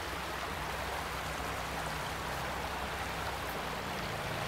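Steady rush of shallow water running down a narrow ditch beside a path.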